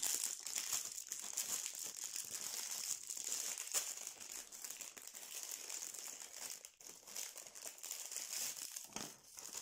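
Clear plastic packaging crinkling unevenly as hands open the bags around small plastic toy parts.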